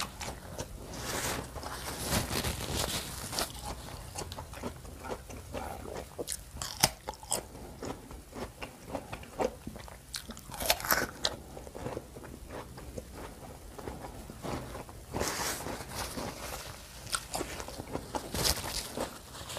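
Close-miked biting and chewing of crisp raw fruit for rujak: wet crunching and mouth sounds, with a few sharper, louder crunches.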